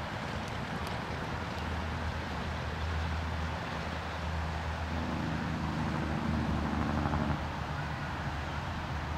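Steady outdoor background noise with a low rumble, which swells between about five and seven seconds in.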